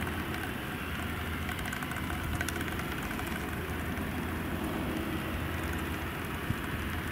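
Pilatus PC-24's twin Williams FJ44 turbofan engines heard from afar as the jet comes in on final approach: a steady low rumble.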